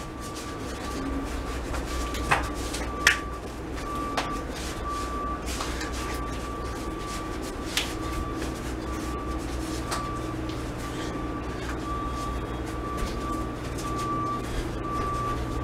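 Steady low hum of room noise with a faint wavering whine, broken by a few sharp taps and knocks several seconds apart from a person's feet and body moving while shadowboxing.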